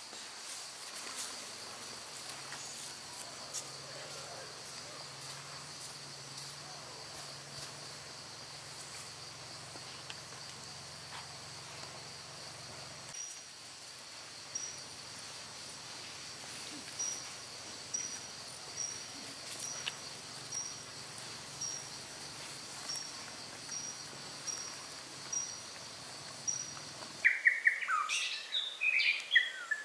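A steady high-pitched insect drone, with a short high chirp repeating roughly every second through the second half. Near the end it cuts suddenly to a bird singing loudly in quick notes that rise and fall.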